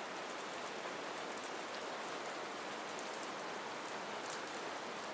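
Steady rain falling, an even soft hiss with faint scattered drop ticks.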